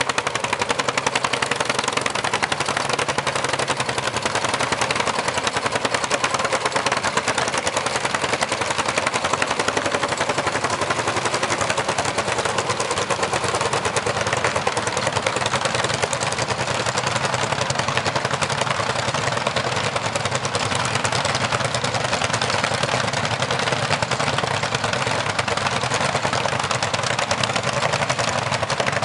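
Several single-cylinder two-stroke hot-bulb tractor engines, Lanz Bulldog and similar, running together under load as they pull through mud. Their exhaust beats make a fast, steady popping chug.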